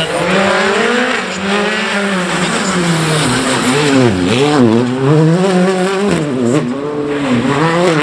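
Hyundai i20 R5 rally car's turbocharged four-cylinder engine revving hard as it is driven through tight turns. The revs rise and fall repeatedly, dropping sharply and climbing again about four seconds in and again later.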